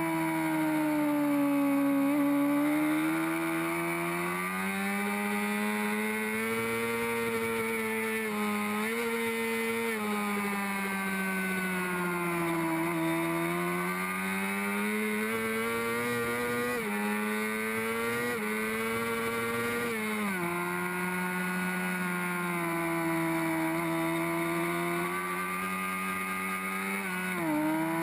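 Honda CBR600RR's inline-four engine at racing revs, heard from onboard with wind rush. The pitch rises and falls through the corners, and steps sharply several times at gear changes.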